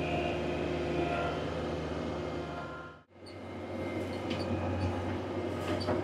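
Skid steer's diesel engine running steadily. It drops out briefly about halfway through, then comes back with a few light clanks.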